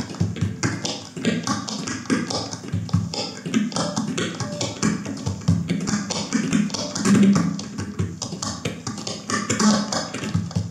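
Cutaway acoustic guitar played with a percussive attack: fast, rhythmic strikes on the strings with pitched notes under them.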